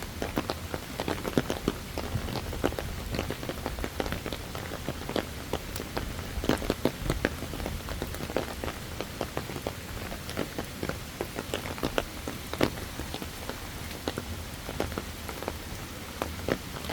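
Rain falling on a surface: an irregular scatter of small drop ticks over a steady low hiss.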